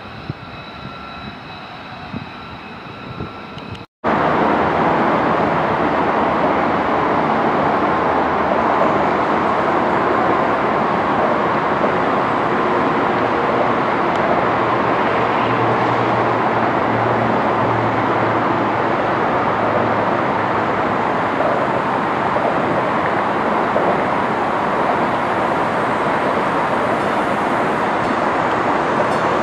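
A taxiing F-35 fighter's jet engine whines steadily with a few high tones. After a sudden cut about four seconds in, a loud, steady rushing noise takes over, with a faint low hum in the middle, as a TEXRail Stadler FLIRT train approaches.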